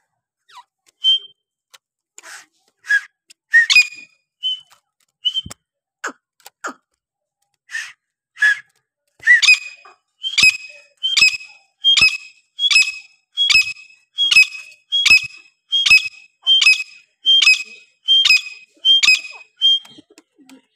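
Grey francolin calling. A few scattered short notes, then from about nine seconds in a fast, regular run of loud, ringing whistled calls, about one and a half a second, that goes on until near the end.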